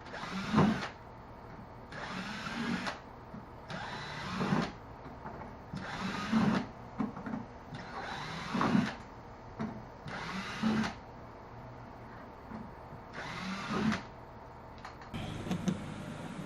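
Power drill run in seven short bursts about two seconds apart, each one spinning up and winding down as it drives in the fasteners that mount a gear track to the kayak.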